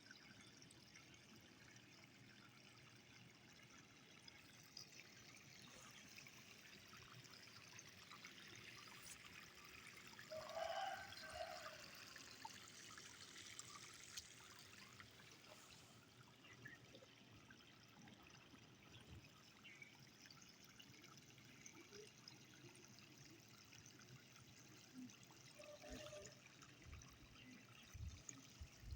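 Near silence with a faint, steady hiss. A brief faint pitched sound comes about ten seconds in.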